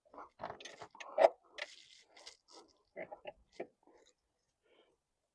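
Scattered clicks, taps and short scrapes of hand tools and metal parts being worked under the hood while an alternator is bolted in, with one sharper knock about a second in.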